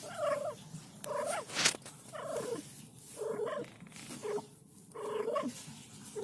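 Mother cat purring with a trilling voice, one call about every second in time with her breathing. A short sharp click about a second and a half in.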